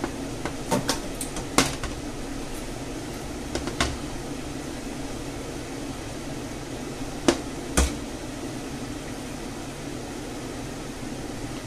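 Stainless steel mesh sieve of fried potatoes and onions knocking against a frying pan as it is drained and lifted: a few sharp metal clinks, two close together about seven and a half seconds in, over a steady fan-like hum.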